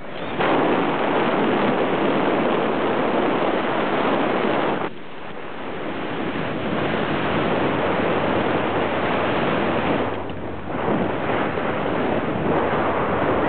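Wind from the hang glider's flight rushing over the microphone: a loud, steady rush that drops away briefly about five seconds in and again around ten seconds.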